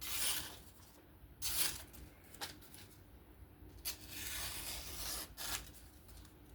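Knife blade drawn in several short scraping strokes, with a longer stroke about two-thirds of the way through.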